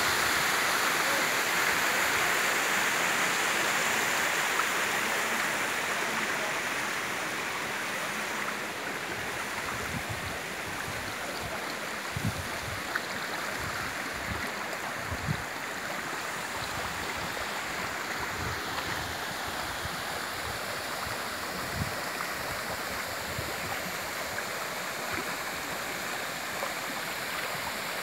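Water rushing over a small cascade and running along a shallow stream channel. It is loudest at first and settles after several seconds into a steadier, quieter flow, with a few soft low thumps in the middle stretch.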